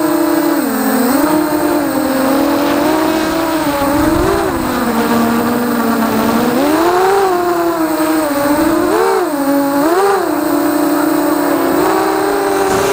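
FPV multirotor drone's motors and propellers buzzing, the pitch rising and falling with throttle, with two quick upward surges near the end.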